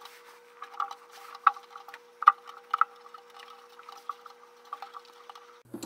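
Light, irregular clicks and taps of hands handling the black plastic housing of a new Fasco A170 draft inducer blower around its mounting tabs.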